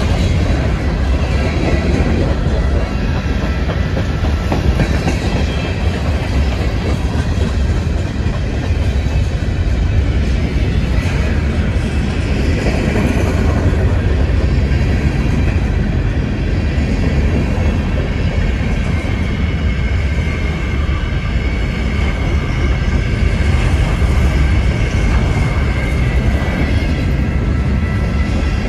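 A train's cars rolling past on the rails, a loud, steady rumble of wheels on track.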